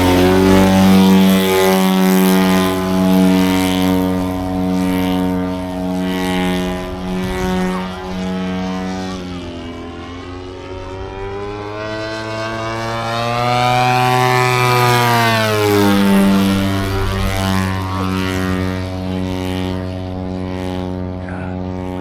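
Radio-controlled model airplane's propeller engine running steadily. Around the middle of the stretch its pitch drops, climbs and then falls again as the plane manoeuvres past.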